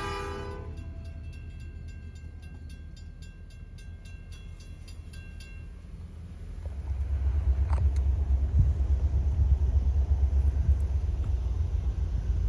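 Railroad crossing bell ringing in evenly spaced strokes over a faint low rumble. From about six and a half seconds in, a car's engine and road rumble, heard from inside the car, rise and take over as it drives off.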